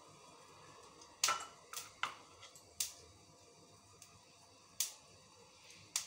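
Hand-cutting of boiled potatoes with a small knife over a glass bowl: about six light, sharp clicks and clinks at irregular intervals, the loudest about a second in.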